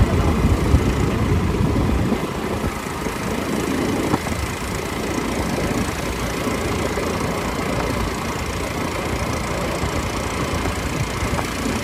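Several quad bike (ATV) engines running at low speed, a little quieter after about two seconds.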